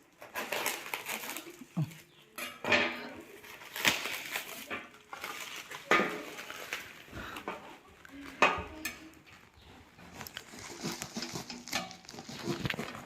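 A parcel being opened by hand: wrapping rustling and tearing, with irregular knocks and clinks as the box and its contents are handled.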